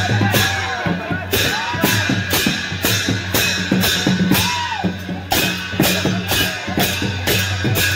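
Newar dhime drum and large hand cymbals played together in a fast processional rhythm. The cymbals clash about two or three times a second over the drum's deep beat.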